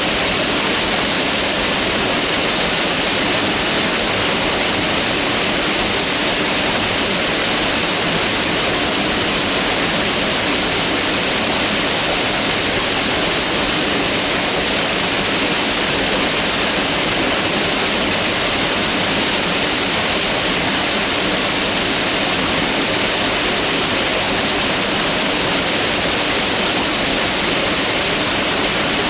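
Mountain river rushing: a loud, steady, unbroken sound of flowing water, more hiss than rumble.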